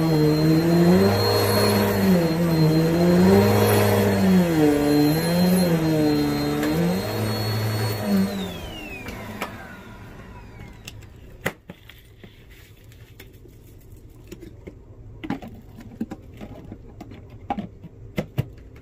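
Vacuum cleaner running, its motor pitch dipping and recovering every couple of seconds. About eight seconds in it is switched off and the whine falls away as the motor spins down. A few light clicks and taps of handling follow.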